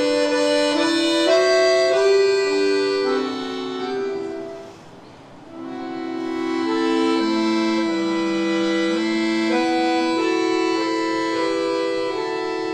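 Solo accordion playing a slow, lyrical melody in sustained reed chords. A phrase dies away to a brief pause about five seconds in, then a new phrase starts over a long held lower note.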